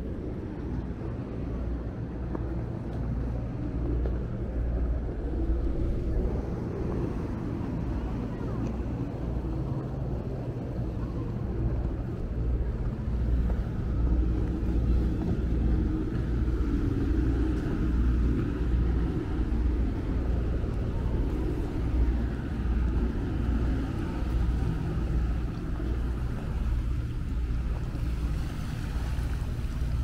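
Steady low rumbling outdoor noise with irregular gusts, typical of wind buffeting the microphone by the sea.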